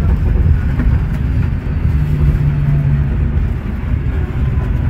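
Mercedes-Benz O500U city bus under way, heard from inside the cabin: its OM936LA Bluetec 6 six-cylinder diesel running with a heavy low rumble and road noise, and a steady low hum holding for about a second around the middle.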